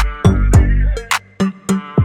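Background music: an electronic hip hop beat with booming bass drum hits and sharp claps on a steady rhythm.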